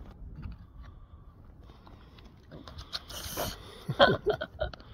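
Light clinks and scrapes of a wooden stick against a stainless steel thermos of melted grafting wax, with a brief hiss about three seconds in. Near the end a loud, short voice-like sound falls in pitch.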